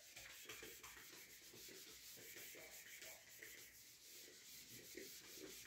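Handheld whiteboard eraser rubbing back and forth across a whiteboard, faint, in repeated short strokes.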